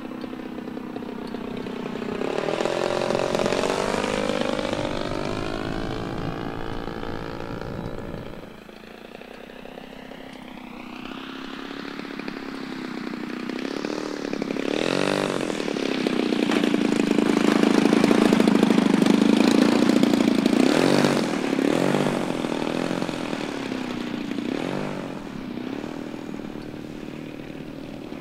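Large-scale RC model airplane's gas engine flying past, its pitch sliding up and down as the plane passes and the throttle changes. It is loudest as the plane passes low about two-thirds of the way through, then throttled back with a few short blips as it comes in to land.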